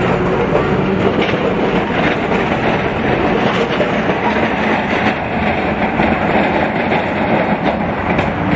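Melbourne W-class tram rolling past close by and pulling away along its track, a steady running noise of wheels on rails with faint scattered clicks.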